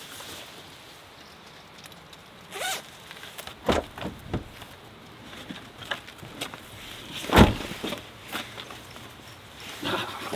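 A nylon puffy jacket rustling and being zipped as it is put on, with scattered handling clicks. About seven seconds in comes one heavy thump, the loudest sound, from the pickup truck's rear door being shut.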